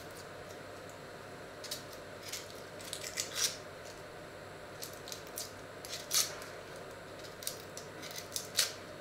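Dry onion skin crackling and a small paring knife snipping as an onion is peeled by hand: a dozen or so short, crisp crackles and snips, the loudest about three and a half and six seconds in. A steady faint hum runs underneath.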